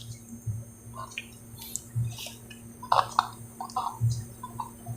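Faint scattered clicks and light taps, several close together about three seconds in, over a steady low hum; no audio comes from the USB Bluetooth panel under test, whose sound fault is not yet fixed.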